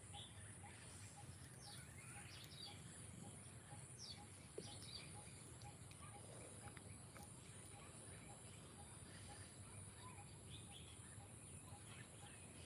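Faint rural outdoor ambience: small birds chirp now and then over a steady high insect drone, with a faint pulsing call repeating about three times a second.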